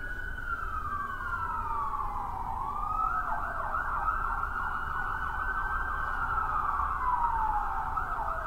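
Siren wailing, its pitch falling slowly, sweeping back up, warbling rapidly for a few seconds, then falling slowly again.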